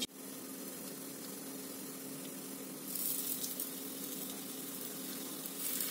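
Kebabs shallow-frying in oil on an iron tawa, a steady sizzle that grows louder and brighter about three seconds in and again near the end, as more kebabs go into the oil.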